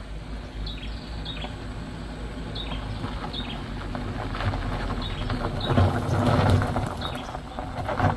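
Car engine and tyres crunching on loose gravel, growing louder as the car approaches and is loudest about six seconds in. A bird repeats a short falling chirp throughout.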